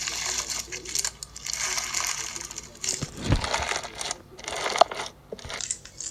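Fishbowl slime being squeezed and pressed by hand, its plastic beads crackling and clicking in repeated bursts, with one soft low thump a little after the midpoint.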